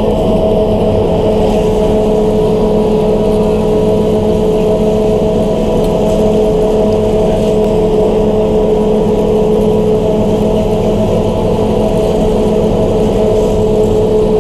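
Chairlift drive motor running at a steady speed: a loud, even hum with two steady whining tones that do not change in pitch.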